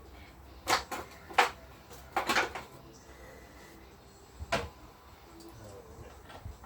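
Workshop handling sounds: a handful of short, sharp knocks and clinks as tools and parts are picked up and set down during a moped strip-down, the loudest about a second and a half in and the last near the middle.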